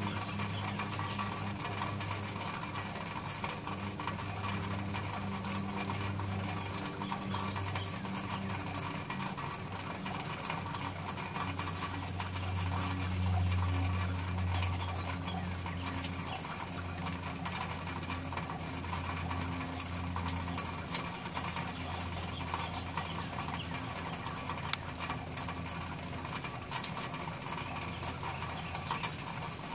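A steady low mechanical hum that swells for a few seconds around the middle, with faint bird calls.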